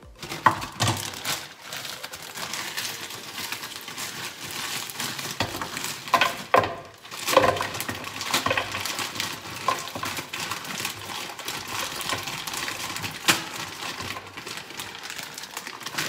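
Frozen fruit pieces clattering into an empty blender jar in a run of small knocks and clicks, with plastic freezer bags crinkling as they are handled.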